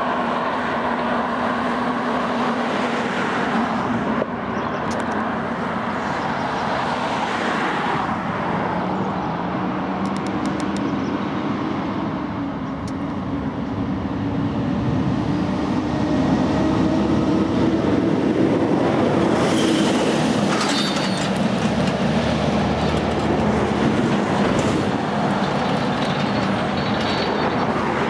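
Steady rumble of passing heavy vehicle traffic, its low engine hum climbing slowly in pitch and growing louder from about halfway through.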